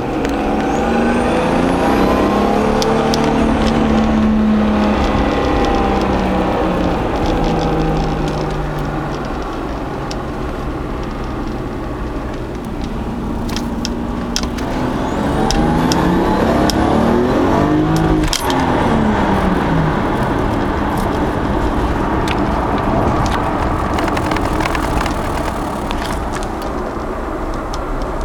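Turbocharged Toyota Supra engine under hard acceleration, heard from inside the cabin. The engine note climbs in pitch through second gear in the first few seconds, eases off, then climbs again in third gear, and the revs drop away about two-thirds of the way in.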